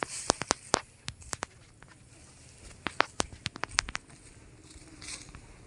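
A person walking a narrow dirt footpath through tall grass: irregular sharp ticks and light rustling, in clusters near the start and again in the middle, with quieter gaps between.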